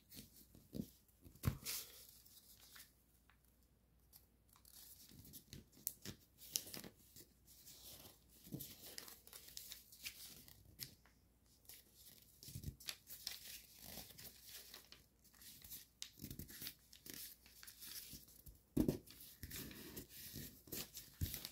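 Foil-backed origami paper crinkling and rustling faintly in short, irregular crackles as it is creased and pressed flat by hand during a petal fold.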